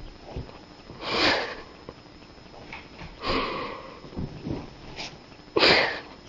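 A dog sniffing hard: three loud breathy sniffs, about two seconds apart, with small clicks and rustles between them.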